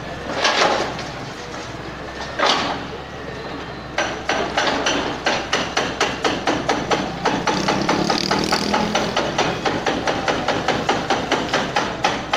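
Powered demolition hammer pounding masonry in a fast, even rhythm of about four blows a second, starting about four seconds in, over the steady running of a wheeled excavator's diesel engine. A couple of heavy knocks come in the first few seconds.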